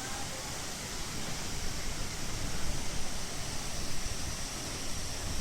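A waterfall's falling water rushing steadily: an even hiss with an uneven low rumble underneath.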